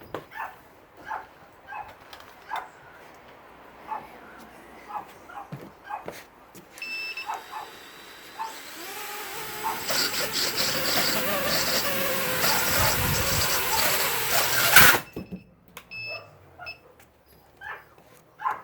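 A small FPV quadcopter's brushless motors spin up and run loudly and unevenly for about six seconds, then cut off suddenly. The quad is shaking violently on a newly fitted flight controller, and the owner wonders whether a motor is bad. A dog whimpers and yips repeatedly before and after.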